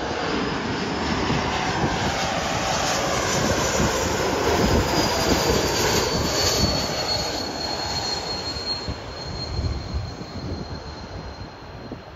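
QantasLink Airbus A220's Pratt & Whitney geared turbofan engines passing close overhead on final approach. The engine noise swells to a peak about halfway through and then fades, with a thin high whine that slides slowly down in pitch as the jet goes by.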